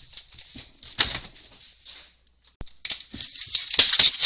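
A small bird chirping repeatedly, with sharp rustling noises about a second in and a louder cluster of them near the end.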